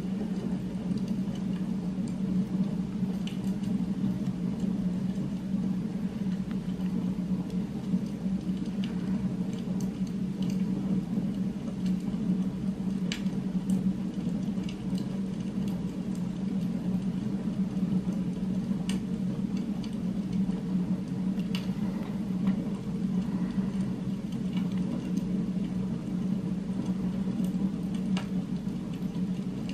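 Steady low droning hum of an added background ambience track, with an occasional faint click.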